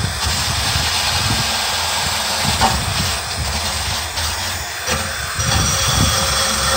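Wire brush spun by a drill, scrubbing the surface of a truck frame to clean it: a steady rasping hiss that eases briefly about five seconds in.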